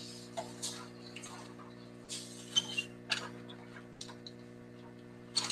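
A low steady hum, with scattered soft clicks and rustles over it, the strongest around two to three seconds in.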